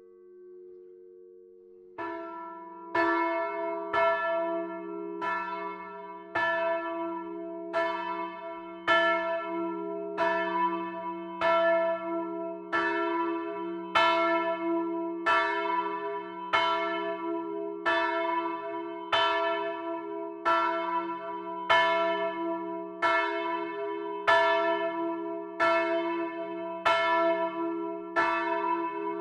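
A single swinging church bell cast by Anton Samassa, ringing steadily in from about two seconds in, struck a little faster than once a second, each stroke's hum ringing on under the next. It stands in for the voice of the old 1858 Samassa bell, which has since cracked.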